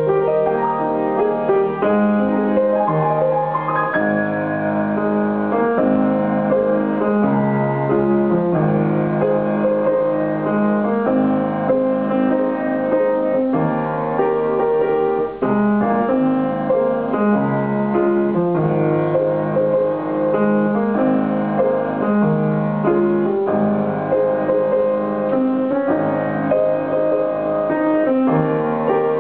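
Grand piano played solo, a continuous flow of melody and chords with a momentary break about fifteen seconds in.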